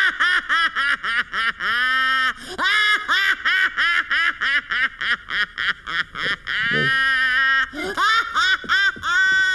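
A cartoon character's voice laughing hard: rapid, repeated high-pitched syllables, about four a second, broken twice by a longer held note.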